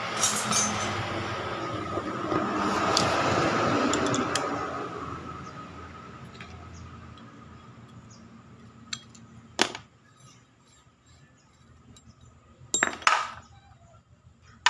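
Sharp metal clinks and knocks from a threaded puller pulling the rocker arm pin out of a Yamaha Jupiter Z motorcycle cylinder head: a few single strikes, with the loudest two close together near the end. A fading engine noise fills the first few seconds.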